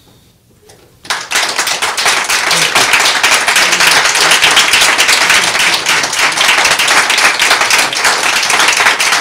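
A room of people applauding, a dense steady clapping that starts about a second in.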